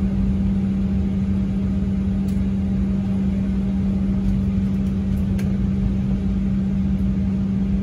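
A moving vehicle's steady running noise: a low rumble under a constant, unchanging hum.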